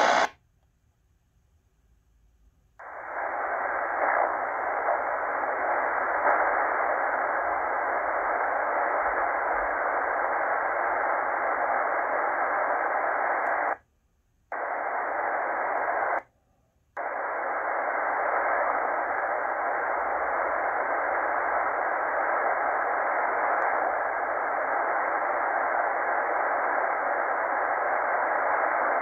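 Static hiss from a Tecsun PL-990x shortwave receiver's speaker, tuned in single-sideband mode above the 27 MHz CB channels with no station heard. The hiss starts about three seconds in and cuts out twice briefly around the middle as the receiver is retuned.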